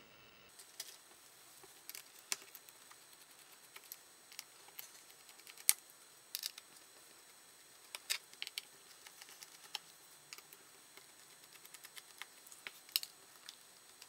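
Faint, irregular clicks and ticks of a screwdriver backing out the screws of a Lenovo ThinkPad P50's bottom panel, with one sharper click a little before halfway.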